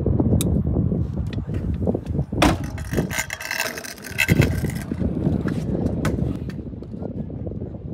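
Stunt scooter's wheels rolling over asphalt: a steady low rumble, with a couple of sharp knocks about two and a half and four and a half seconds in.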